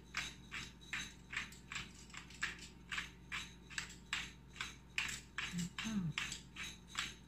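Handheld pepper grinder twisted over and over, grinding peppercorns with a gritty crunch about three times a second.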